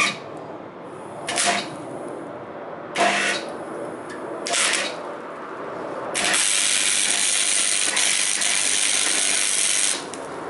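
MIG welder arc laying a small weld joint on a steel exhaust pipe where it meets a flexible pipe section: a few short stabs of noise, then a steady hiss of the arc for about four seconds that cuts off sharply near the end.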